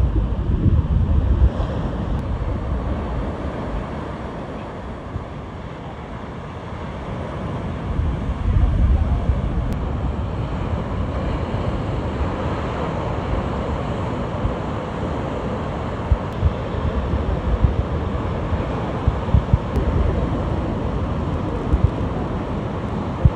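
Wind buffeting the microphone over the continuous wash of heavy storm surf breaking on the beach. The gusts are strongest near the start and again about eight seconds in, with a calmer stretch between.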